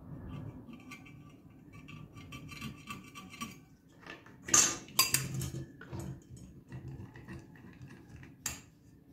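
Copper pipes being handled on wooden boards: light clinks and knocks of metal on metal and wood, with louder knocks about four and a half, five and eight and a half seconds in. Near the end a tube cutter is clamped onto one of the pipes.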